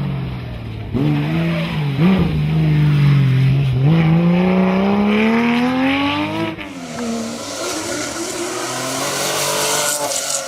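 Porsche rally car engine: its pitch falls at first, blips briefly about two seconds in, then climbs steadily under acceleration. The engine note breaks off about six and a half seconds in, and a rushing noise without a clear pitch carries on.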